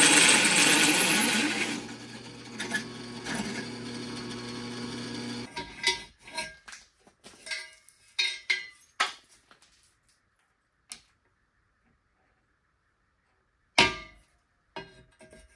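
Drill press cutting through a steel tube, loud for the first two seconds, then the motor spinning freely with a steady hum until it stops about five and a half seconds in. After that, metal knocks and clatter as the steel tube is handled, with one loud clank near the end.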